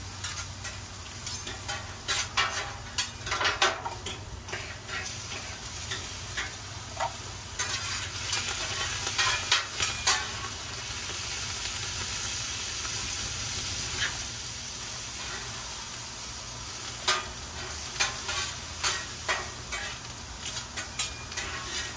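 Onions, zucchini and mushrooms sizzling on a hot Blackstone flat-top griddle. A knife and a metal spatula clack and scrape against the steel plate over and over. The sizzle swells for several seconds around the middle.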